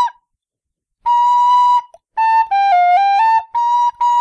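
Nickel Killarney tin whistle in C played high in its second octave, trying out the cross-fingered top notes. After about a second of nothing comes one held note, then a short run that steps down and back up, then two short notes near the end.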